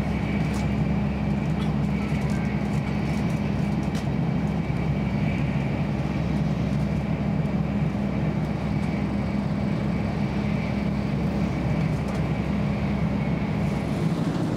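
Steady rumble and rush of a 500 series Shinkansen running at about 227 km/h, heard from inside the passenger car, with a faint steady high tone over it.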